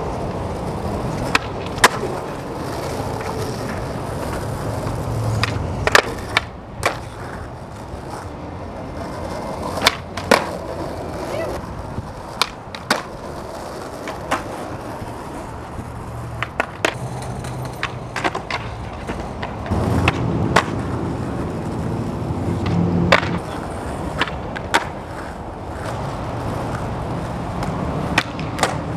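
Skateboard wheels rolling over pavement, with repeated sharp clacks and knocks of the board, from pops and landings, scattered irregularly throughout.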